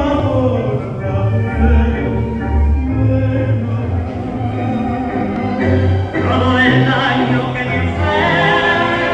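Music with singing voices over a low bass line that changes note every half second or so.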